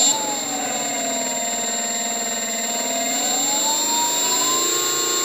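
Brushless motor driven by an electronic speed controller, spinning a two-blade propeller: a steady whine with a constant high-pitched tone on top. The motor's pitch dips slightly, then rises about three seconds in as it speeds up.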